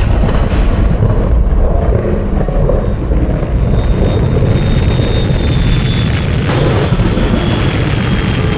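Jet-thruster roar sound effect for a flying DeLorean time machine: a steady loud rush with a deep rumble and a faint high whine, turning harsher and brighter about six and a half seconds in.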